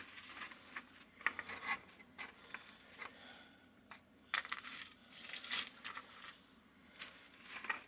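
A spoon scraping and clinking against a 9x13 baking pan as it works crispy pre-cooked french fries around over meatballs, in irregular clusters of short clicks and scrapes.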